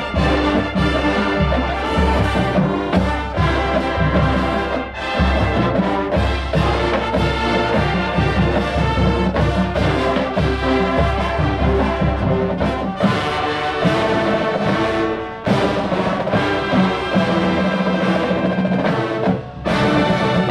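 Full marching band playing: a brass section of trumpets and trombones over drums. A strong low drum beat runs through the first two-thirds, after which the brass carries on over lighter percussion.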